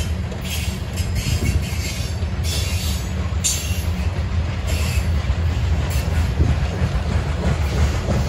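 Norfolk Southern freight train rolling past: a steady low rumble from the passing cars, with short bursts of high-pitched wheel noise every second or so.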